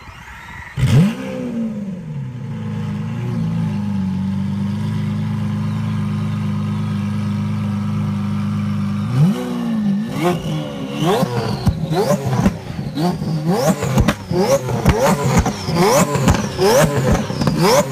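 Car engine heard through its exhaust: it starts about a second in with a brief flare, idles steadily for several seconds, then from about halfway through is blipped in a quick series of revs, each rising sharply and dropping back.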